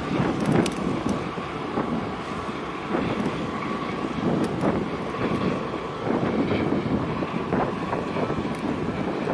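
Wind buffeting the microphone over a steady rush of choppy harbour water.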